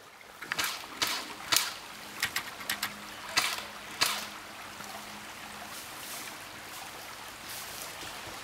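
Irregular crunching and rustling noises, about two a second for the first four seconds, then fainter, over a faint steady hiss.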